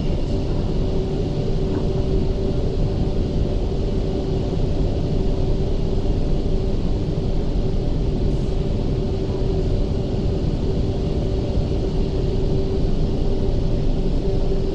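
Steady rumble of an MTR Tseung Kwan O Line electric train running between stations, heard inside the passenger car, with a steady humming tone over the rumble.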